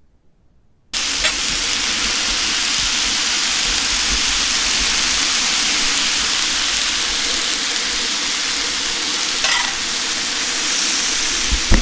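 Cut vegetables (asparagus, broccolini, peppers) sizzling loudly in a hot pan. The sizzle starts abruptly about a second in and holds steady.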